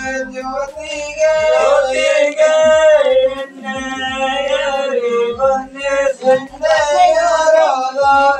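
Male voices singing a traditional Deepavali folk song in long, held melodic lines with short breaks between phrases.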